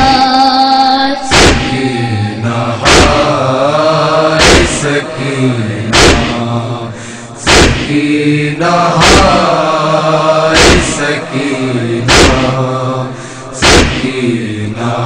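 Voices chanting a noha lament in a slow refrain, with a sharp chest-beating slap (matam) about every one and a half seconds keeping time.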